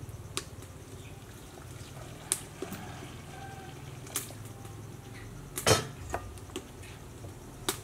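Hot water poured from a metal kettle into a stainless steel bowl of palm sugar, a quiet trickle, with a few sharp clinks of a metal spoon against the bowl; the loudest clink comes a little over halfway through.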